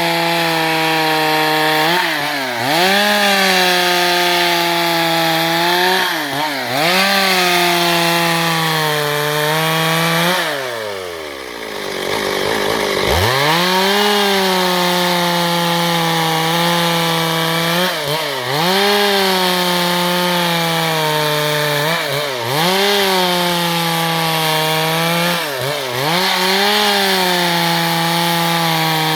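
Stihl MS 382 two-stroke chainsaw running at high revs while sawing wood, its pitch dipping under load every few seconds and recovering. About ten seconds in it drops back toward idle for a couple of seconds, then revs up again.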